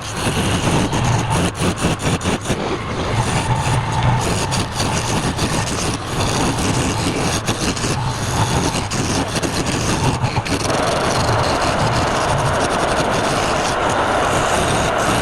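Wood lathe running while a turning tool cuts the spinning wood: a rough scraping full of small ticks over the motor hum. About ten and a half seconds in it settles into a steadier, smoother hiss.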